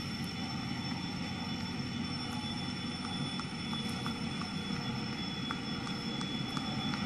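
Diesel locomotive running steadily as the train pulls away from the platform: an even engine drone with a thin steady whine above it. A few faint clicks are scattered through it.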